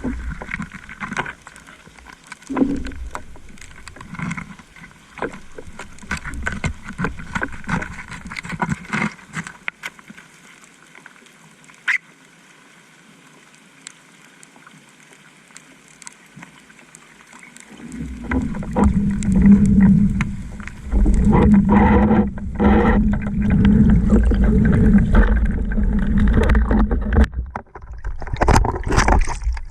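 Water noise from a spearfishing dive, with scattered sharp clicks, that turns quieter for several seconds. About two-thirds of the way through, a loud steady low rumble with a hum sets in: a boat motor, which is running near the diver.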